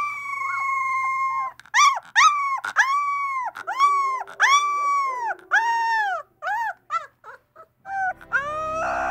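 Alaskan Malamute puppy howling: one long held note, then a string of short howls that each rise and fall, tapering off. Near the end a second puppy's howl joins in.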